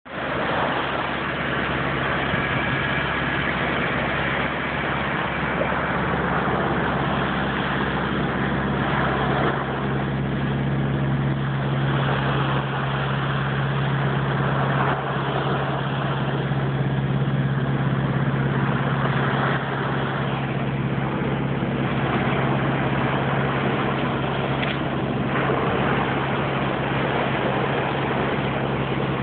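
Small waves breaking and washing up a sandy beach, a continuous rush that swells and eases. A steady low hum runs underneath it throughout.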